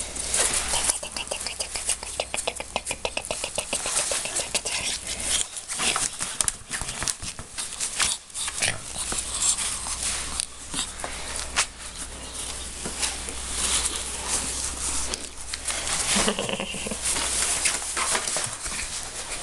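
A ferret dooking, a rapid chuckling cluck, with scrabbling and rustling from its fabric play tunnel as it is played with by hand.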